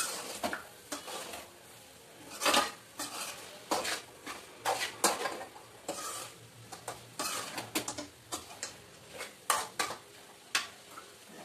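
Metal spoon scraping and knocking irregularly against a steel kadai as mutton is stirred, over a light sizzle from the frying pieces.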